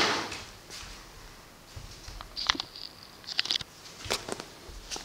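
Light handling sounds of a cardboard parcel on a wooden table: a handful of short, scattered taps and clicks from hands moving on and around the box.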